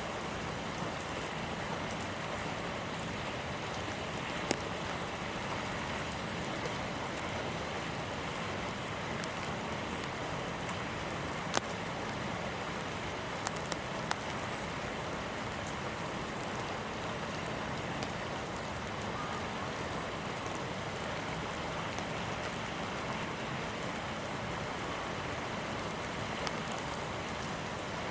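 Steady hiss of falling precipitation on a snowy day, with a few scattered sharp ticks of drops landing.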